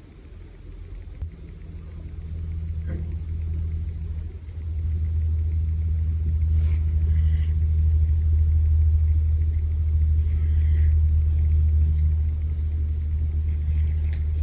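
A loud, steady low engine rumble that builds over the first few seconds and then holds.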